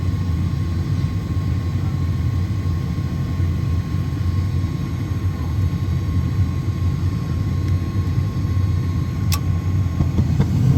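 Gas furnace running with a steady low hum from its fan motor, and one sharp click near the end.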